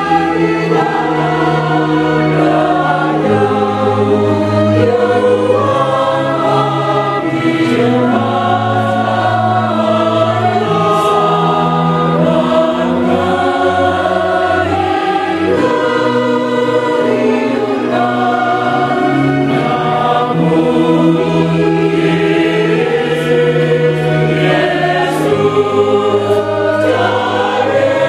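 A mixed choir of men and women singing an Indonesian hymn, with long held notes.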